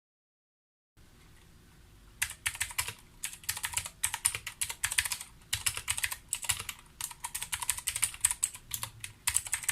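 Typing on the Ajazz AK33 mechanical keyboard with Zorro Blue tactile switches: a fast, uneven run of key clicks that starts about two seconds in, with a few short pauses. It is not super clicky, but it is louder than a regular keyboard.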